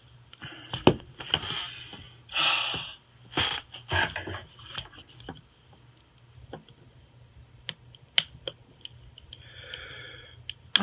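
Small sharp clicks and taps from handling a phone and its parts during a screen repair, with a few short rustling noises, mostly in the first half and once more near the end.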